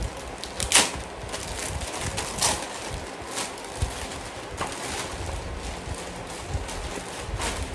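A parcel being opened by hand: packaging rustling, with a string of sharp crackles and light knocks at uneven intervals.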